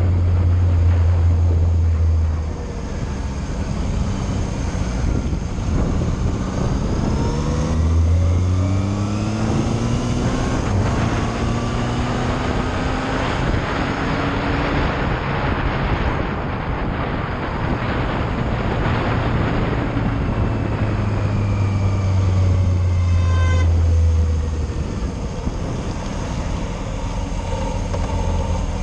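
Yamaha Fazer motorcycle engine heard from the rider's seat while riding, pulling low for a while and then rising in pitch through the gears between about six and fifteen seconds in, then settling again. A steady rush of wind runs underneath.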